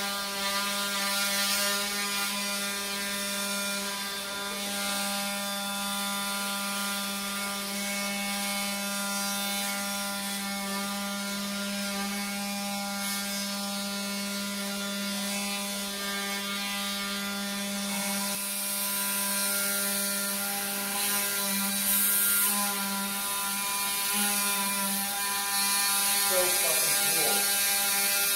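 Powered oscillating bone saw on the surgical robot's arm running steadily, a continuous mechanical buzz, as bone cuts are made for a total knee replacement.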